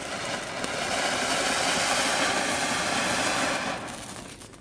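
A flower pot (ground spark fountain firework) burning with a steady rushing hiss, which builds over the first second and dies away near the end.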